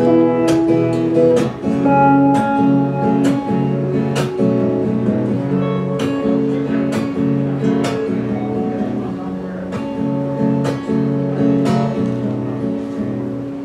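An acoustic guitar strumming and an electric guitar playing together in an instrumental folk passage, with strums about once a second under held notes. It grows gradually quieter toward the end.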